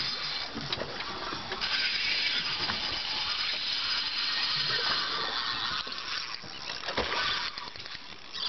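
Spinning fishing reel whirring under load as line is worked against a hooked blackfin tuna. The whir is steady through the middle and eases off after about six seconds, with a sharp click about seven seconds in.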